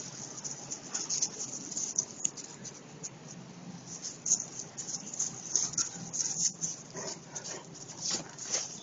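Dog whimpering and huffing in short, irregular bursts.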